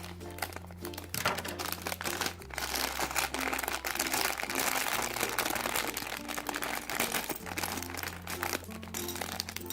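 Plastic parts bag from a Mega Bloks set being opened and handled, a continuous crinkling and crackling that is loudest in the middle stretch, over background music.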